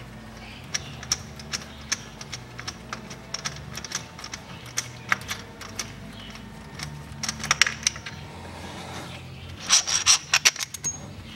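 Light, irregular metallic clicks and clinks of hand work on the loosened timing-belt idler pulley and its bolt, over a steady low hum, with small bursts of clinking about seven and a half and ten seconds in.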